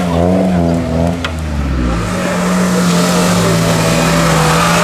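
An off-road 4x4's engine revving hard under load in mud. The revs rise and fall at first, then hold steady at high revs from about two seconds in.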